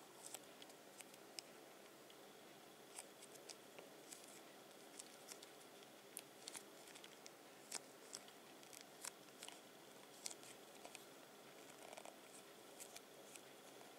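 Near silence, broken by faint, irregular small clicks and crackles from a plastic cream tube being squeezed by hand.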